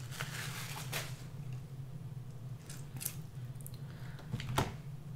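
King crab leg shell being broken open by hand and the meat pulled out: a few sharp cracks and clicks, the loudest near the end, over a steady low hum.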